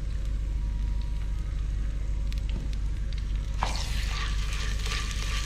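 Ground green masala paste sizzling in hot oil in a clay handi. The sizzle flares up suddenly about three and a half seconds in as the paste is stirred, over a steady low hum, with a few light clicks of the spoon before it.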